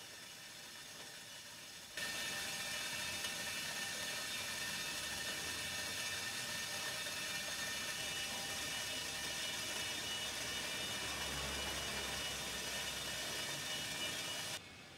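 Water tanker truck's machinery running with a steady whir and several high steady tones, starting suddenly about two seconds in and cutting off suddenly near the end; before it, only a faint hiss.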